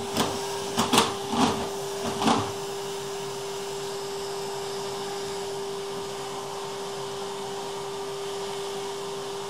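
Vacuum cleaner running steadily with a constant whine and hiss. A few short, sharp sounds come over it in the first two and a half seconds.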